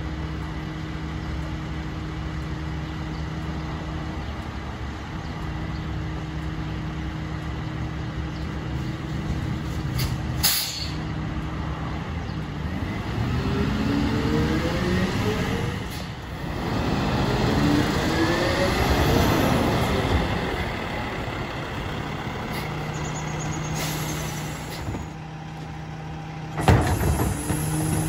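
Freightliner Econic rear-loader garbage truck's diesel engine idling steadily, with a sharp air-brake hiss about ten seconds in. The engine pitch then rises in two long sweeps before it settles back to idle, and a few knocks come near the end.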